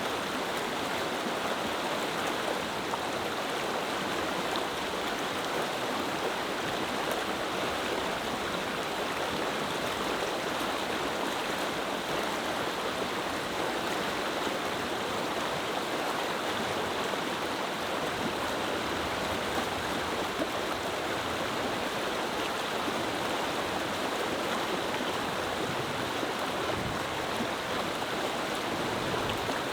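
Clear mountain river flowing over rocks, a steady rushing babble that holds an even level throughout.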